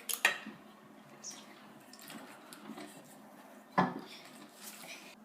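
Kitchenware being handled while making cake batter: a few sharp clinks and knocks, the loudest nearly four seconds in.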